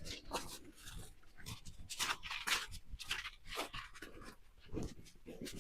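Beagle panting, a string of short breaths a few times a second.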